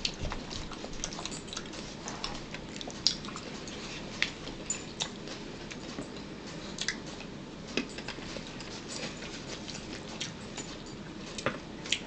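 Eating at the table: chewing and mouth clicks, with a fork tapping and scraping in a plastic bowl, heard as many short, irregular clicks.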